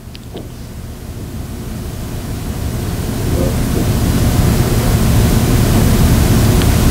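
Steady hiss of room noise that swells over the first few seconds and then holds loud and even, with a few faint clicks near the start.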